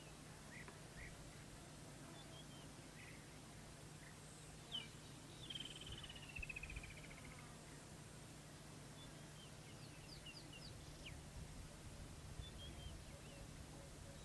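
Faint bird calls over a low steady hum: scattered short chirps, with a quick falling trill about five to seven seconds in.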